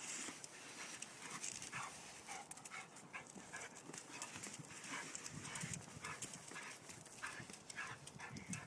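Wet vizsla rubbing herself along wooden house siding to dry off: fur scuffing against the boards and claws clicking and scraping irregularly on concrete.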